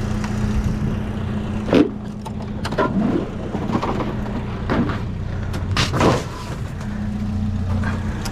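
Vehicle engine idling steadily, with a handful of sharp clanks and cracks of metal and plastic being pried apart while a scrapped TV is dismantled; the loudest comes about six seconds in.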